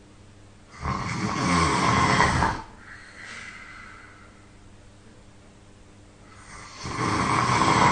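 A person snoring loudly: two long snores about six seconds apart, each lasting about two seconds, with a softer breath out after the first.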